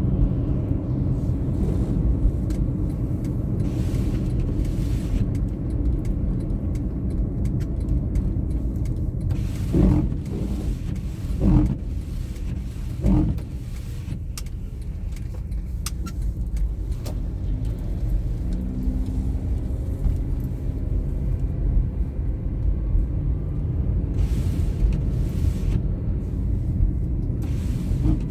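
Car driving on snowy roads: a steady low road and engine rumble, with three short louder bumps about a third of the way through.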